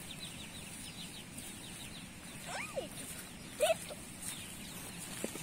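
Young chickens peeping: a run of quick, faint, high downward chirps, with two louder short calls about halfway through.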